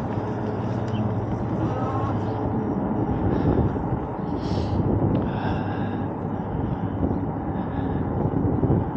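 Steady rush of wind on the microphone with tyre and drive noise from an Eahora Juliet electric bike riding on throttle along a paved street.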